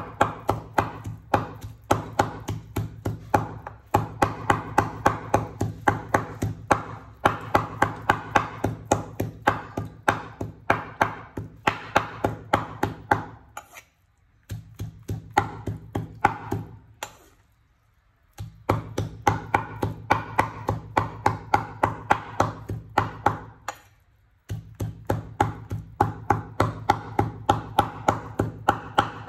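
Cleaver chopping raw pork on a wooden cutting board: fast, even blows of about three a second, each a sharp knock with a short low ring from the board. The chopping breaks off briefly two or three times.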